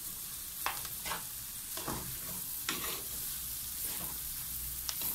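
Rice with corn, onion and garlic sizzling in butter and oil in an aluminium pan while a spoon stirs it, scraping the pan about once a second. The rice is being toasted in the fat before the water goes in.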